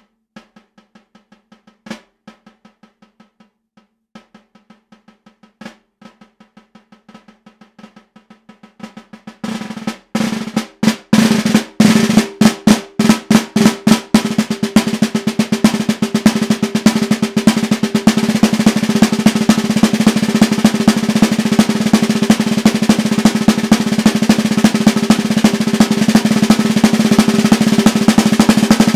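Solo snare drum played with wooden sticks: very soft, rapid strokes with a few sharper accents, swelling about nine seconds in to loud separate hits, then from about halfway a sustained loud roll.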